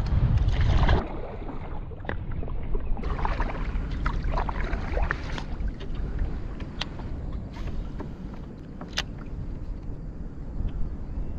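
Wind buffeting the microphone and small waves lapping against a plastic kayak's hull. It is louder for the first second, then drops. A few light knocks and ticks come in along the way.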